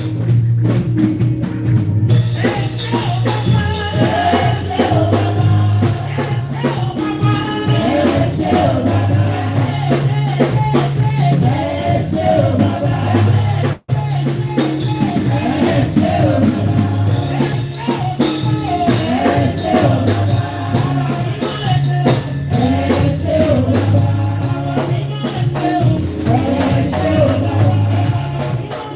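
Upbeat Nigerian makossa-style gospel praise music: a bouncing bass line, tambourine and percussion, with a choir of voices singing. The music cuts out for an instant about halfway through.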